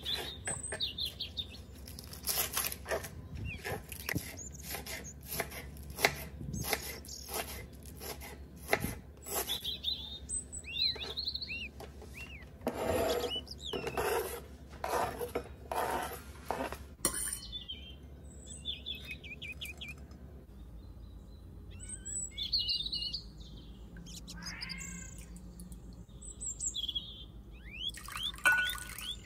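A knife chopping green onions on a plastic cutting board, a steady run of quick chops, then the blade scraping the chopped onion off the board into a bowl. Small birds chirp in the background throughout.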